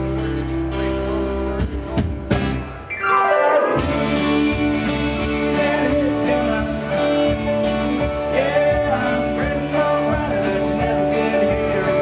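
Live country band playing an instrumental passage on guitars, fiddle and bass. About three seconds in, a note slides steeply down, and the full band then comes back in with sharp rhythmic hits.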